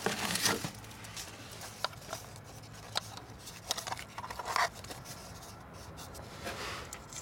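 Irregular light scrapes, rubs and a scattering of sharp clicks: handling noise from moving the camera about under the car.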